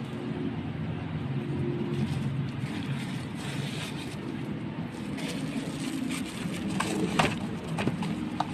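Plastic-wrapped parts and a cardboard box being handled, rustling, with a few sharp clicks about seven seconds in, over a steady low hum.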